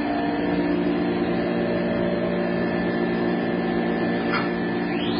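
CNC router machinery running with a steady mechanical hum of several held tones. A brief rising whine comes near the end.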